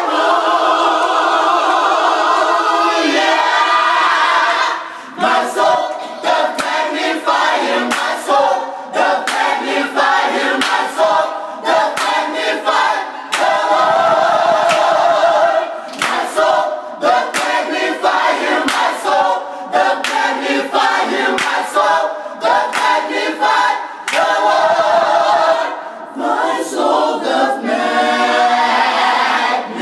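Gospel choir of mixed voices singing a cappella in several parts.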